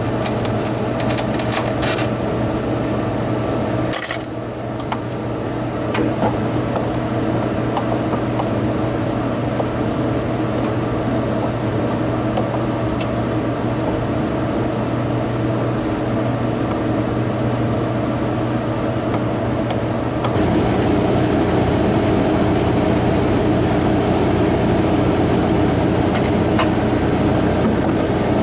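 Steady hum of running machinery, with a few light clicks near the start and a knock about four seconds in. The hum grows louder, with more hiss, from about twenty seconds in.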